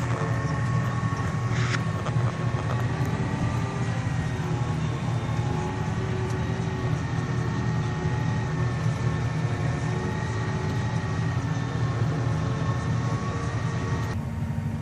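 Farm machinery engine running steadily, a low rumble with a faint steady whine over it. Just before the end the hiss drops away and a lower steady hum remains.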